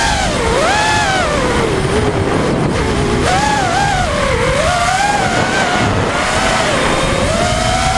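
Racing quadcopter's motors and propellers whining in flight, the pitch rising and falling over and over with the throttle, over a steady rush of air.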